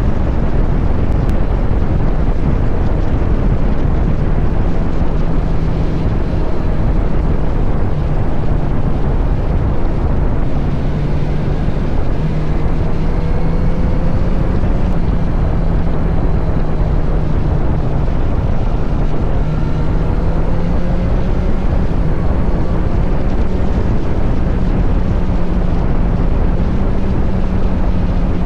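Kawasaki Z900 SE's inline-four engine through an SC Project CR-T slip-on exhaust, pulling at fairly steady revs that creep up slightly, with heavy wind noise on the microphone.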